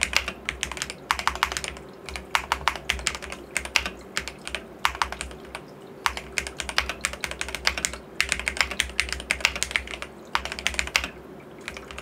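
Fast touch-typing on a DrunkDeer A75 magnetic-switch keyboard: rapid runs of key clacks, each a second or two long, broken by brief pauses.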